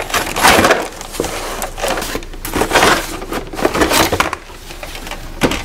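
Cardboard box and plastic toy house scraping and rustling as the house is worked out of its packaging, in a run of rough scrapes with a few louder ones.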